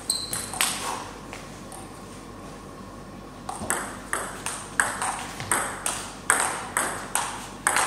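Table tennis rally: the ball clicking off rubber paddles and bouncing on a JOOLA table, about three hits a second from about three and a half seconds in. Before that come a few single clicks and a quieter pause.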